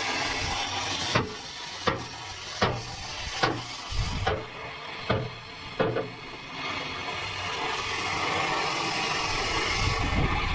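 About seven sharp knocks, a little under a second apart, over a steady hissing noise that carries on after the knocks stop, typical of hammer blows in truck body repair.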